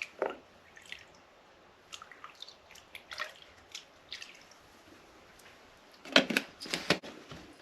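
Scattered drips and small splashes of water in a portable washing machine's tub, with a louder cluster of splashes about six seconds in.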